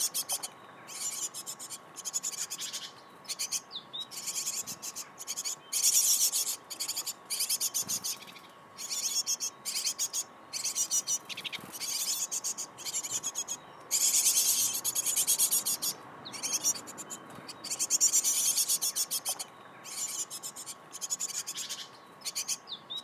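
Great tit nestlings begging for food in chorus: repeated raspy, hissing bursts, each up to about a second and a half long, following one another with short gaps.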